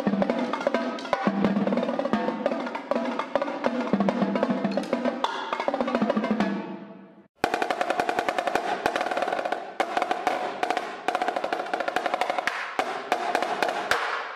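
Marching drums played in fast solo runs. Pitched tenor drums play first. After a short break about seven seconds in come very rapid strokes and rolls on a higher-pitched marching snare.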